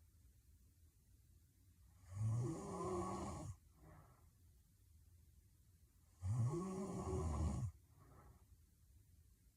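A sleeping young woman snoring heavily. There are two long snores about four seconds apart, each rising and falling in pitch, and each followed by a short, softer breath.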